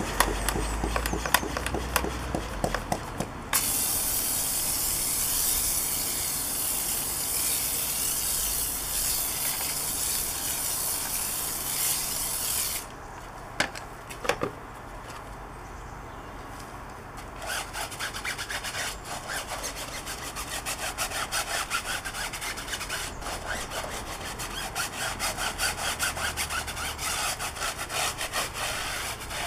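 Tyre cleaner going onto a car tyre from a hand pump sprayer: a quick run of clicks, then a steady hiss of spray that cuts off sharply a little under halfway through. After a short lull, a stiff tyre brush scrubs the rubber in quick back-and-forth strokes.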